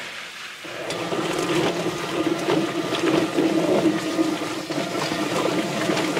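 Drum-style chicken plucker running, starting about half a second in. A steady motor hum with repeated knocks as a scalded meat chicken tumbles against the rubber plucking fingers in the spinning drum.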